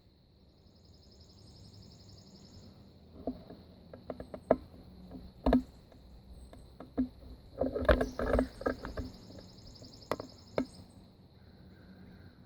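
Early-morning garden ambience: a steady high insect drone with buzzy insect trills above it twice. In the middle comes a cluster of irregular knocks and clicks close to the microphone, the loudest about halfway through and again a little later.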